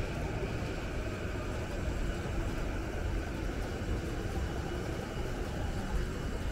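Steady low rumble of city street ambience, with no distinct events standing out.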